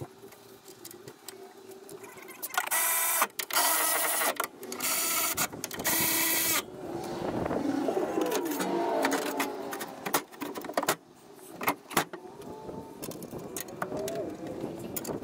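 Metal clinks and knocks of tools and steel parts under a mini excavator's cab floor, with four loud bursts of noise, each under a second, a few seconds in. Near the end a heavy steel floor plate clanks as it is laid back in place.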